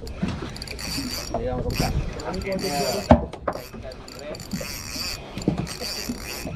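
Fishing reel being cranked, its gears whirring in repeated spurts, with a sharp click about three seconds in.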